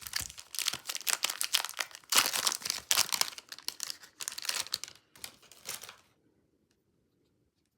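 A trading-card pack wrapper crinkling and tearing as it is opened, a dense run of crackles that stops about six seconds in.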